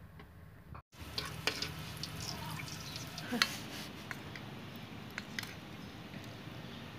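Kitchen handling sounds: a spoon clinking against a steel bowl of masala filling, giving scattered light clicks and knocks, after the sound cuts out briefly about a second in.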